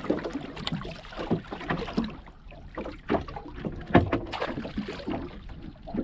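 Wire-mesh crab pot being handled over the side of a small boat: irregular rattles, clanks and knocks of the wire frame and mesh, the loudest knock about four seconds in, over a low wind rumble on the microphone.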